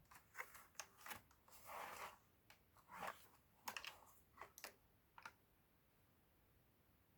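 Keys of a Logicool G Pro tenkeyless mechanical keyboard with tactile switches being pressed: a faint, irregular string of key clicks mixed with brief handling rustles, stopping a little after five seconds in.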